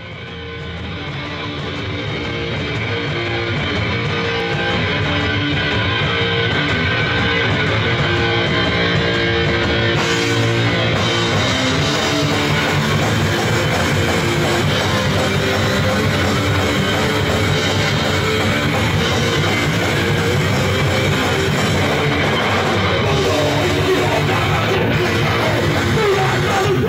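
Live rock band playing loud, distorted electric guitar with drum kit, the music swelling up over the first few seconds and then holding steady.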